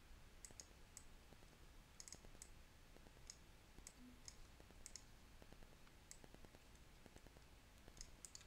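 Faint, scattered computer mouse clicks, a dozen or so at irregular intervals, over near silence.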